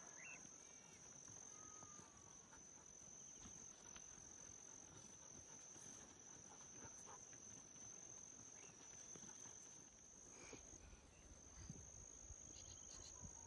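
Near silence, with a faint steady high-pitched insect drone.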